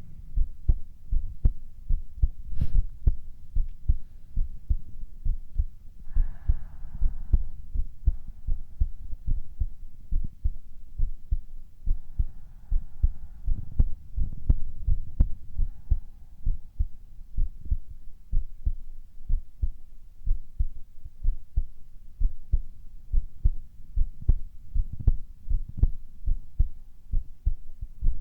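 Human heartbeat: a steady, even run of low thumps.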